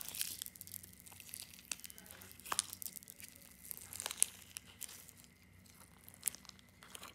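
Clear slime being kneaded by fingers with plastic beads, foam balls and star confetti in a plastic tub: scattered small crackles and clicks, a few of them sharper.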